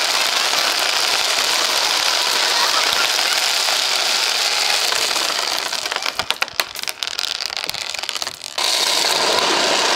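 Many small hard beads clattering down a plastic chute: a dense crackling rattle that thins to a few separate clicks from about six seconds in, then turns dense again near the end.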